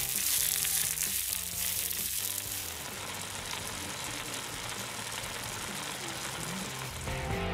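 Rice and onions sizzling in a frying pan over a camp stove: a steady frying hiss, a little quieter after about three seconds. Faint background music plays under it for the first couple of seconds.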